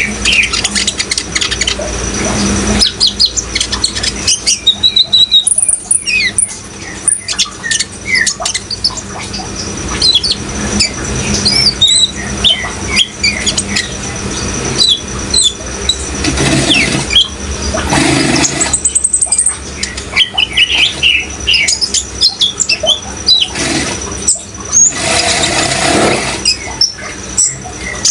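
Sunbirds (kolibri ninja) singing in rapid, high chirps and short sliding notes over a steady rush of running water.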